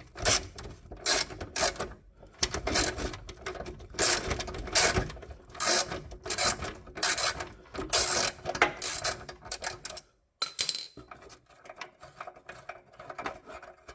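Ratchet wrench backing out an 8mm bolt: rapid clicking in repeated bursts, quieter and sparser after about ten seconds as the bolt comes loose.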